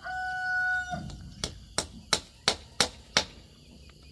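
The held end of a rooster's crow with a steady pitch, stopping about a second in. It is followed by a run of six sharp clicks, about three a second.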